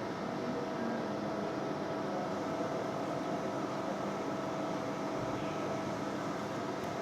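Steady hiss and hum of a TIG welding arc from an inverter welder, with a faint constant tone running under it.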